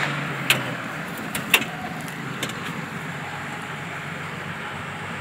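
Off-road 4x4 engine running steadily, its low hum dying away about a second in. A few short sharp clicks follow over a steady outdoor noise.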